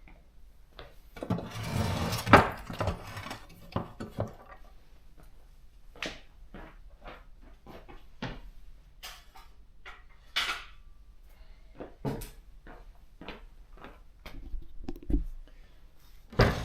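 Scattered knocks and clicks of a Consul 1511 portable typewriter and its case being handled and set on a table, with a denser clatter and a loud knock about two seconds in.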